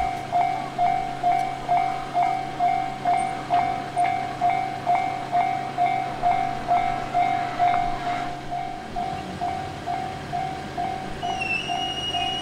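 Japanese railway level-crossing alarm ringing its electronic bell in an even, steady rhythm of about two and a half strokes a second. Near the end a high, thin whine joins in.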